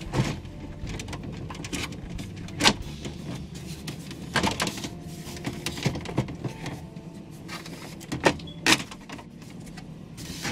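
Scattered clicks and knocks of the plastic instrument cluster and dash trim of a 2004 Pontiac Montana minivan being worked under the steering wheel, a handful of separate sharp knocks over a low steady hum.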